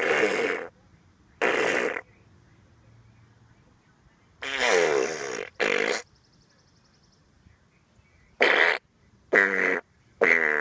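Fart sound effects played from a push-button sound device added to a Razor electric scooter. There are about seven farts of different lengths, one after another, some falling in pitch. This is the scooter's joke 'gas' feature.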